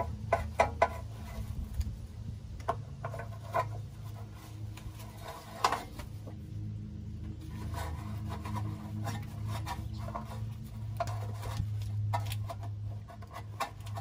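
Ratchet with a socket and extension clicking and scraping in short, irregular spells while loosening the crankshaft position sensor's mounting bolts, over a steady low hum.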